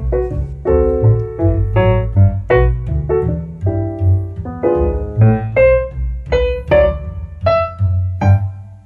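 Background piano music: a melody of short, separate piano notes over a steady bass.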